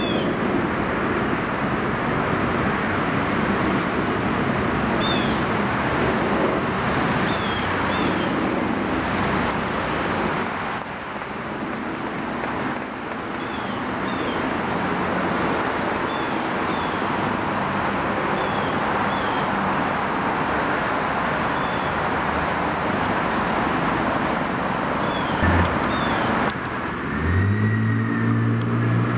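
Airbus A380 jet engines on final approach, a steady broad roar mixed with road traffic, with small birds chirping over it. Near the end it gives way to a low engine hum with a higher whine gliding up and down.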